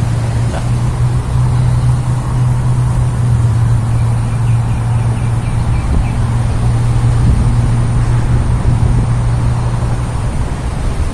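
Steady drone of road traffic from a nearby toll road, a continuous wash of noise over a low hum. A faint run of quick ticks comes about four seconds in.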